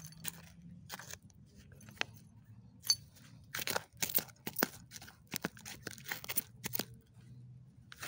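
Small hand digging tool scraping and crunching through soil full of broken glass, in irregular strokes and quick clusters. One sharp click with a brief ring about three seconds in.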